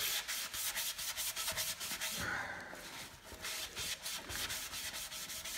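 Rapid back-and-forth rubbing on a rusty steel VW Beetle muffler, wiping or scouring off rust loosened with CLR, at about five or six scratchy strokes a second, with a brief pause a little over two seconds in.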